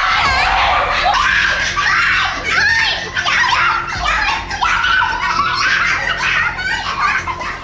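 A group of people laughing together, several voices overlapping with excited cries.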